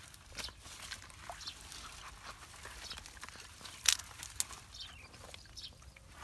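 Dry pine needles and twigs crackling and snapping as gloved hands pull them out of a clogged culvert pipe, with one sharper snap about four seconds in.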